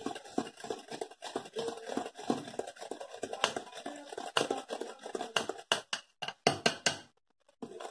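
Hand whisk beating butter, powdered sugar and ghee in a glass bowl: quick, irregular clicks and scrapes of the whisk against the glass. The sound cuts out briefly near the end.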